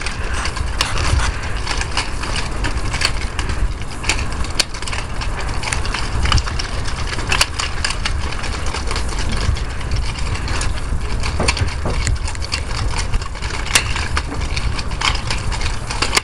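Chain-linked nunchucks being swung and twirled: the chain rattles and clinks, with irregular sharp clicks and a few harder cracks as the handles strike.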